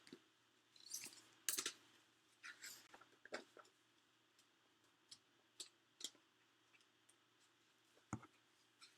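Faint clicks and short rustles of hands handling a packaged set of craft cutting dies, busiest in the first few seconds, then a few scattered clicks.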